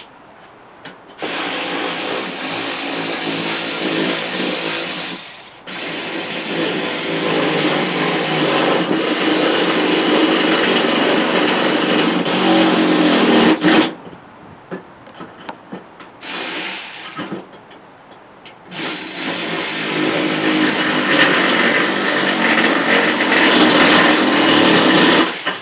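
Small cordless power driver running in several long bursts with short pauses, driving the bolts that hold a mower deck spindle and its guard. The bolts go in hard, which the owner takes as a sign that the spindle is at fault and has stripped the bolt holes.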